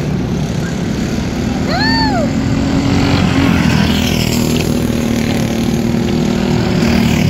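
Several racing go-kart engines running on a dirt oval, their pitches rising and falling as the karts accelerate and lift through the turns. A brief high call that rises and then falls in pitch cuts in about two seconds in.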